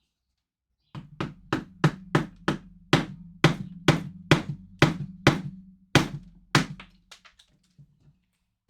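A mallet striking a carving chisel into wood: a run of about fifteen sharp blows, two to three a second, each with a short low ring, tapering off into a few lighter taps near the end.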